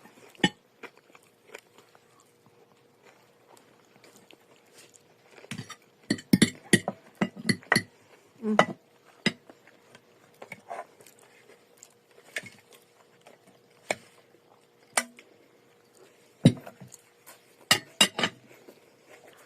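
Irregular clinks and knocks of cutlery against dishes at a meal, with a cluster of sharp clinks a little after a third of the way in and a few more near the end.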